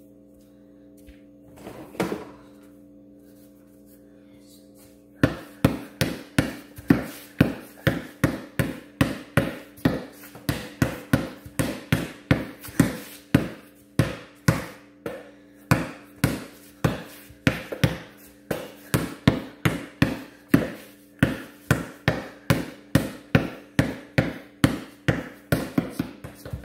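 Basketball dribbled on a concrete garage floor, a steady run of sharp bounces about two a second that starts about five seconds in.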